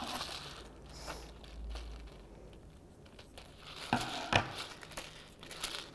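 Quiet crinkling and rustling of handling, with two sharp snips about four seconds in as scissors cut a stick-on plastic toy eye from its backing sheet.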